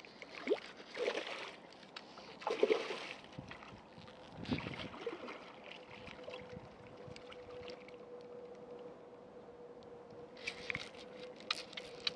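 Water splashing and sloshing in three short bursts in the shallows at the pond's edge, a hooked carp thrashing as it is brought to the bank. Later, a faint steady hum and a few light clicks.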